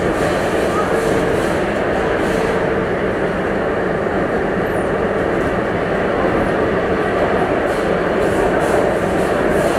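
Steady rumble and rushing noise inside an underground metro train car as it runs through the tunnel.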